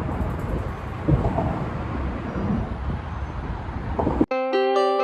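Steady low rumbling noise with no clear pitch, cut off abruptly a little after four seconds in by background music of clear plucked or mallet-like notes.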